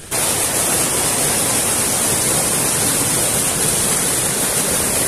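Waterfall running: a loud, steady, even rush of falling water with no breaks.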